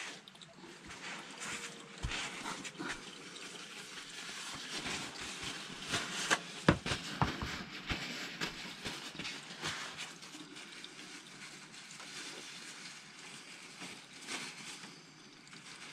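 Used engine oil trickling from a motorcycle's sump and filter housing into a plastic drain bowl during an oil change. A few sharp knocks and clatters from handling come about six to eight seconds in, the loudest near seven seconds.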